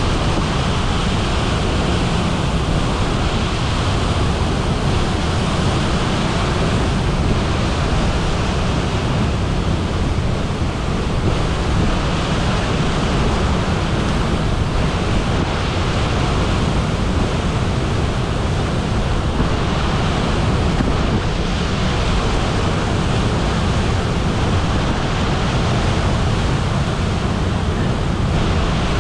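Waterfall in heavy flow heard close up: a loud, steady rush of whitewater plunging into a churning pool, deepest at the low end.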